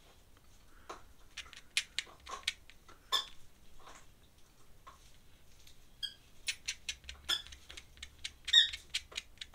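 Ink pen nib scratching and squeaking across drawing paper in short, quick strokes and flicks, irregular and loudest about eight and a half seconds in.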